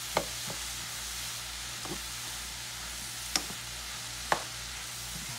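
Shredded cabbage and vegetables sizzling steadily in a frying pan as they are stirred with a spatula, which knocks sharply against the pan a few times.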